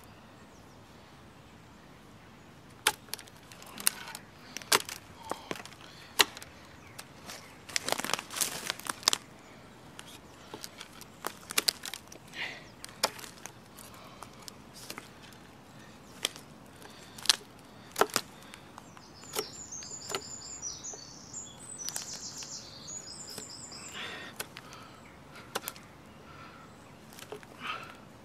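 Casström No. 10 Swedish Forest Knife trimming small twigs off a thin branch: irregular sharp cracks and snaps of the blade cutting through, with a quick cluster of them about eight seconds in. A bird chirps briefly about two-thirds of the way through.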